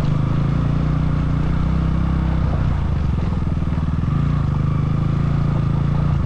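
KTM Duke motorcycle engine running while riding. Its note is steady at first, eases off about two and a half seconds in, then comes back on strongly about four seconds in.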